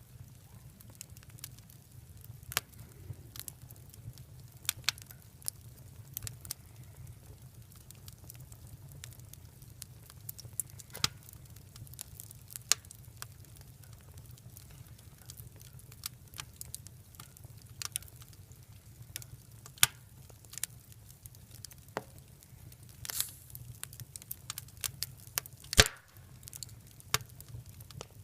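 Wood fire crackling, with irregular sharp pops and snaps; the loudest pop comes near the end.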